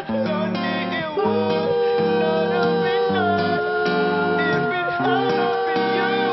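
A vocal trio of two men and a woman singing in close harmony, holding long notes, with instrumental accompaniment underneath.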